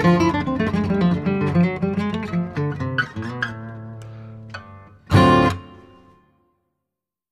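Background music on acoustic guitar: a run of picked notes, then one loud strummed chord about five seconds in that rings out and fades to silence.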